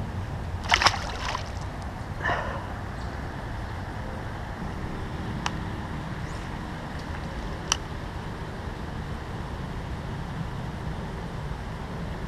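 Steady low outdoor rumble, with a loud cluster of sharp clicks about a second in, a softer knock a second later, and two single light clicks further on, from handling fishing tackle.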